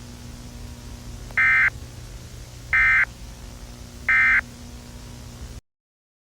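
Emergency Alert System end-of-message (EOM) signal: three short, identical buzzy SAME digital data bursts about a second and a half apart, marking the end of the alert. A faint low hum runs underneath, and the audio cuts to silence near the end.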